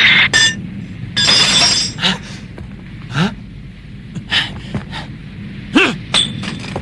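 Cartoon sword-fight sound effects: a series of sharp metallic clangs and clinks. There is a long ringing clang near the start and another about a second in, then shorter strikes scattered through the rest.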